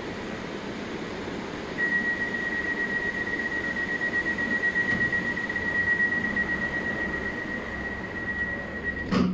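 EG2Tv Ivolga electric train standing at the platform, its equipment giving a steady hum and hiss. About two seconds in a steady high electronic tone starts and holds, cutting off with a sharp click near the end.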